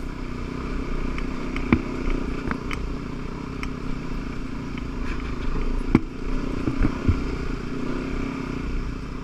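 Motorcycle engine running steadily at trail speed, with a few sharp knocks and clatter as the bike rolls over the rocky dirt trail.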